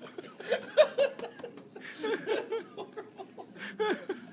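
Men laughing and chuckling in short bursts, with the loudest burst a little under a second in.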